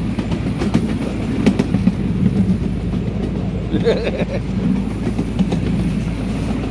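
Miniature ride-on train running along its track, heard from on board: a steady low rumble with scattered clicks from the wheels and cars.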